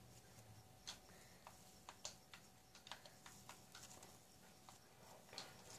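Faint, scattered crackles and little clicks of fluffy cloud slime being squeezed and stretched by hand: the sizzling sound this slime is known for.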